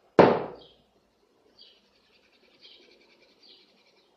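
A sharp knock about a quarter second in, then faint, fine rasping as flour is shaken through a plastic mesh sieve onto semolina.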